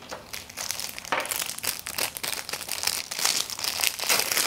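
Packaging crinkling and rustling as it is handled, a run of irregular crackly crinkles.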